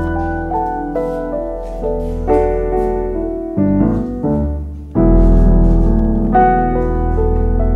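Background music led by piano-like keys, playing a melody over a steady low bass. The music thins out briefly about halfway through and comes back louder about five seconds in.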